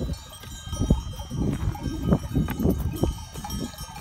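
Bells on a flock of sheep clinking as the animals move, over irregular low thumps and rumbling close to the microphone.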